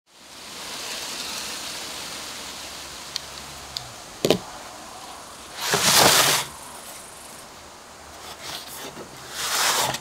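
Cardboard product boxes slid and set down on a wooden tabletop: two long scraping swishes, the first about halfway through and the second near the end, after a few small ticks and a sharp knock, over a steady hiss.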